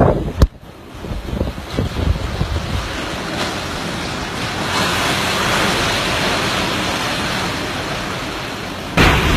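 Typhoon wind blowing hard and buffeting the microphone, building toward the middle, with a sharp knock just after the start and a sudden stronger gust near the end.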